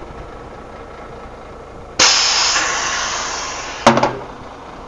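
Compressed air hissing out sharply as an air brake hose coupling on a truck tractor unit is disconnected from the trailer line; the hiss starts suddenly about two seconds in and fades over about two seconds. Two sharp metallic knocks follow near the end.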